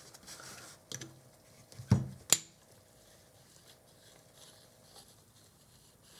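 Three small, sharp metal clicks as the lens's parts are fitted together by hand, the loudest about two seconds in, then quiet room tone.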